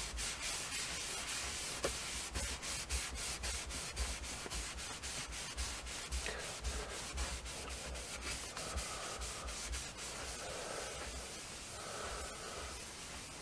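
Cloth rag rubbing fine stain-remover powder over a Bakelite radio cabinet in quick back-and-forth strokes, about three or four a second. The strokes grow fainter after about eight seconds.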